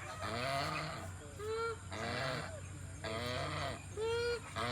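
Geese honking, a run of repeated calls in quick succession, some harsh and raspy, others clearer with a bending pitch.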